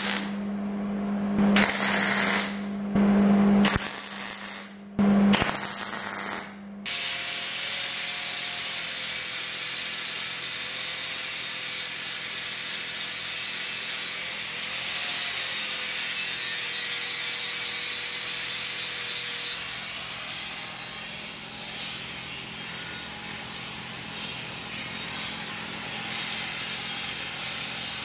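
Several short bursts of electric welding on steel railing tubing, one to two seconds each, in the first seven seconds. Then a corded angle grinder runs steadily against the welded steel railing, a little quieter for the last third.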